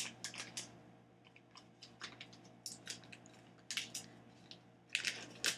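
Quiet handling noises at a kitchen counter: scattered light clicks and rustles, with a few sharper crinkles about four and five seconds in.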